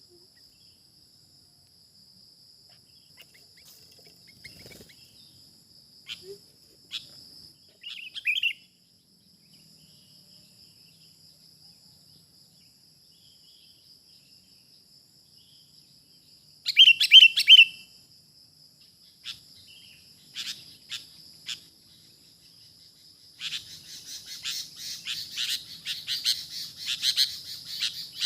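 Sooty-headed bulbuls (kutilang) calling: scattered short call notes, a loud burst of three quick notes about two-thirds of the way in, then dense, continuous chirping in the last few seconds. A steady high-pitched whine runs underneath.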